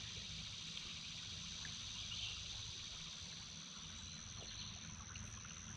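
Shallow river water trickling over a gravel bar, a steady faint rushing, with a thin steady high-pitched tone over it.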